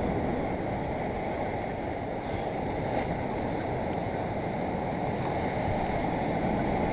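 Steady rushing noise of sea surf on a rocky shore, mixed with wind, with no single wave standing out.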